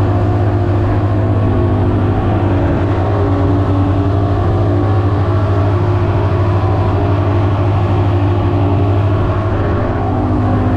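Twin Mercury outboard motors driving a boat at speed: a loud, steady engine drone that holds one pitch throughout.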